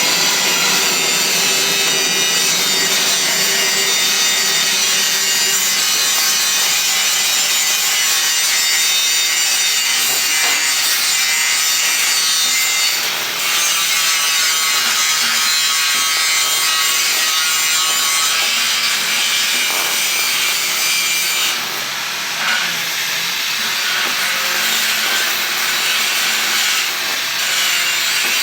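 Continuous harsh rasping noise of a metalworking tool in steady use, with a faint steady whine in it. It dips briefly about 13 seconds in and again about 22 seconds in.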